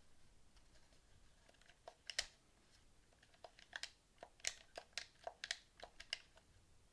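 Sharp clicks and taps from handling a PS4 controller, about a dozen in an uneven run starting about two seconds in.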